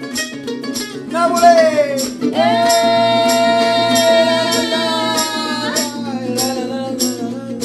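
Live acoustic music: a mandolin and an acoustic guitar strummed while a man and a woman sing. The voices slide down about a second in, then hold one long note together for about three and a half seconds, over light percussion ticks keeping a steady beat.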